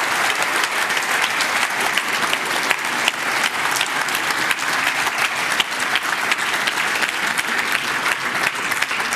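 Large audience applauding steadily, many hands clapping densely and evenly.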